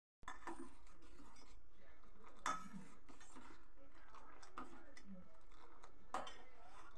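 A few faint knocks and clinks of a saucepan of tea being handled on a gas stove, three in all, over a steady low hiss.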